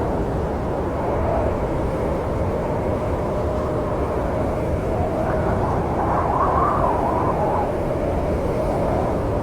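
Snowstorm wind ambience: a steady low rushing rumble, with a gust that swells and rises in pitch about five to seven seconds in.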